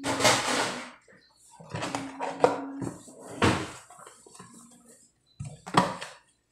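A glass being wiped dry with a cloth towel, with several short bursts of rubbing and knocks of dishware.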